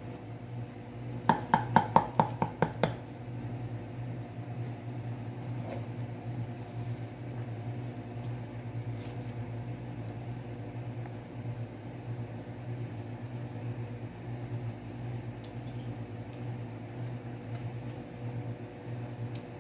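A knife cutting a baked eggplant, minced meat and mozzarella casserole in a baking tray, knocking against the tray about eight times in quick succession about a second in. After that only soft cutting sounds and a steady low hum are heard.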